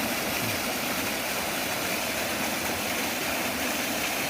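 Steady rushing of a stream flowing over its rock bed at a small waterfall.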